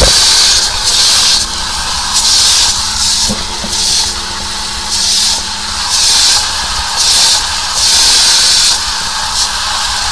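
High-pressure sewer jetter hose spraying water into a blocked drain, a loud hiss that surges and eases roughly once a second over a steady low hum.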